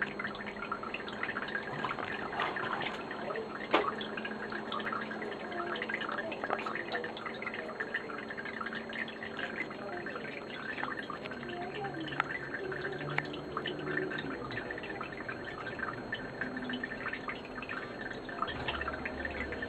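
Aquarium water dripping and trickling: a dense, continuous patter of small drips over a steady faint hum, with one louder knock about four seconds in.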